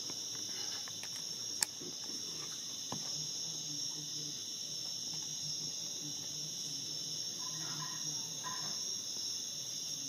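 Steady chorus of night-singing insects, an unbroken high-pitched trill at two pitches, with a single sharp click about a second and a half in.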